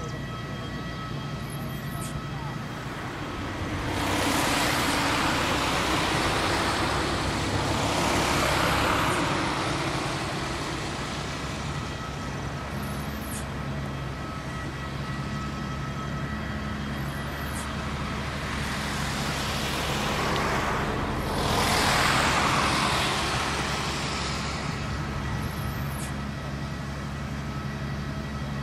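Airport aircraft tow tractor's engine running steadily while towing an airliner, a low hum with a few faint steady high tones above it. Twice the sound swells into a louder rushing noise lasting several seconds: about four seconds in, and again around twenty seconds in.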